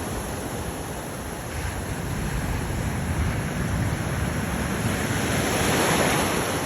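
Ocean surf washing onto the beach, swelling to its loudest about six seconds in, with a low rumble of wind on the microphone.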